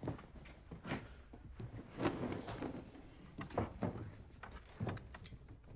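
A handful of short, separate knocks and rustles of people moving at a breakfast table.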